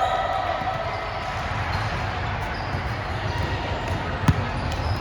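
Indoor volleyball game in a gymnasium: steady hall noise, with one sharp smack of the ball a little past four seconds in.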